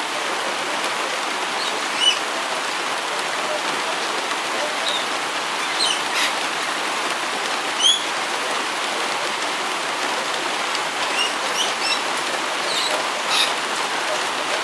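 Steady heavy rain falling, with short high chirps from a feeding flock of rainbow lorikeets every few seconds, the loudest about two seconds in and near eight seconds.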